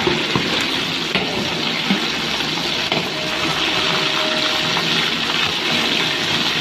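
Marinated chicken pieces deep-frying in hot oil in a metal pot: a loud, steady sizzle and bubbling, with a few sharp ticks in the first two seconds.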